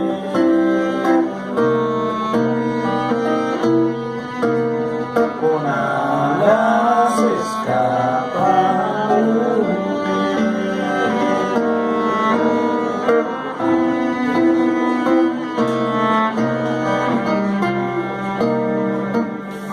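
Instrumental passage of an acoustic song: bowed strings such as cello hold sustained chords over plucked guitar. A wavering lead melody rises above them in the middle.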